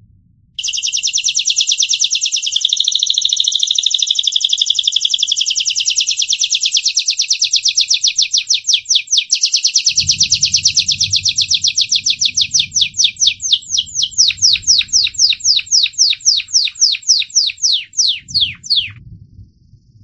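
Crested Gloster canary singing one long song of fast rolling trills, which slows in the last few seconds into separate notes that each slide downward.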